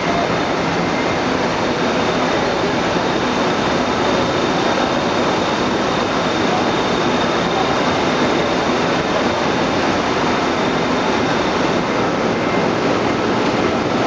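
Electric motors driving large water pumps through multi-groove V-belts, running with a loud, steady din and a faint high whine.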